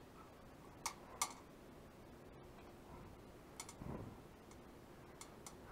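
Faint, irregular light clicks and ticks from a homemade wire-mesh cage trap with a galvanized funnel being handled and turned, two sharper clicks about a second in and a soft knock a little before the end.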